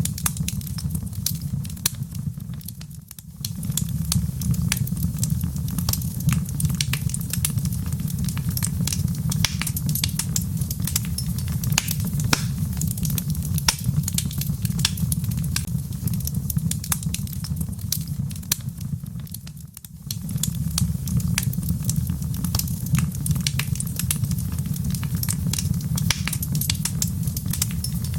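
Wood fire in a fireplace crackling, with dense sharp pops and snaps over a steady low rumble. The sound dips briefly about 3 seconds in and again about 20 seconds in.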